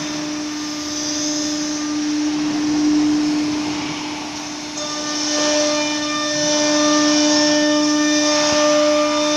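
Automatic tool-change CNC wood router running, its spindle giving a steady hum with a hiss over it as it works a wood panel. About five seconds in, several higher steady tones join the hum.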